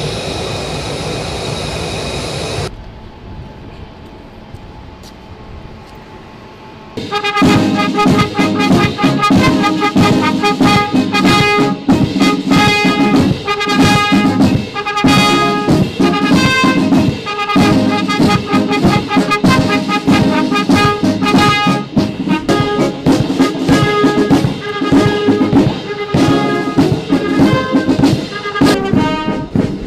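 A jet engine whine for the first few seconds, then a quieter stretch. About seven seconds in, a military brass band begins playing loudly with a steady beat.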